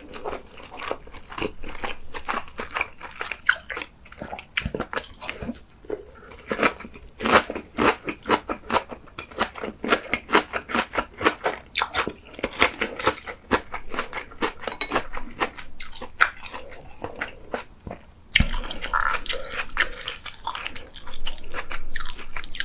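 A person chewing and biting food close to the microphone: a dense run of crisp, quick crunching clicks, several a second. A single low knock comes about eighteen seconds in.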